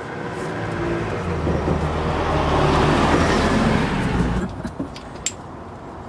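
A motor vehicle driving past close by, its engine and tyre noise swelling louder over about three seconds, then cutting off abruptly about four and a half seconds in.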